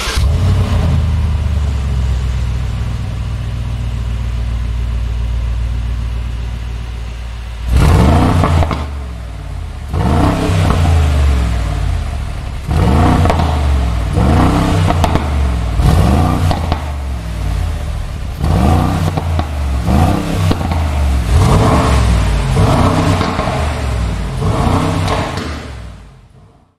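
A high-performance car engine idles steadily, then from about eight seconds in is revved again and again in quick blips, each rising sharply and dropping back to idle.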